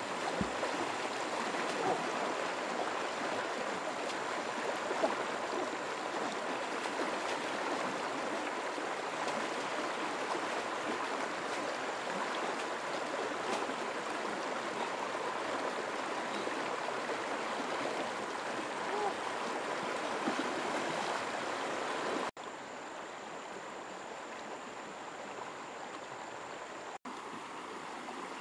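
Shallow, fast-flowing river rushing over stones: a steady wash of water noise, which drops suddenly to a quieter, softer flow about three-quarters of the way through.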